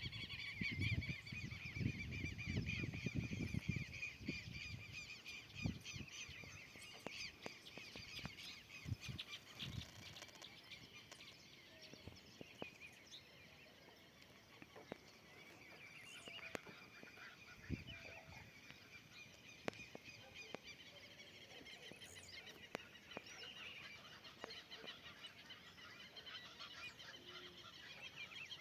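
Wild birds calling and singing together in woodland: many overlapping chirps and trills, with harsh honking calls among them.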